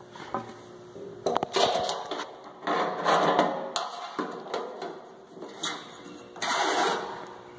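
Several short bursts of scraping and rustling handling noise, each a second or less, with a few sharp clicks.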